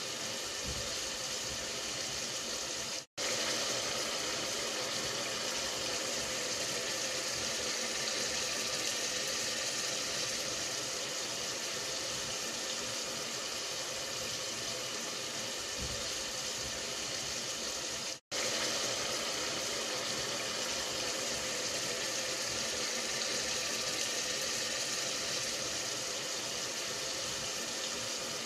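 Meat cooking in its sauce in a pot, a steady sizzling hiss that cuts out abruptly for an instant twice, about three seconds in and near the middle.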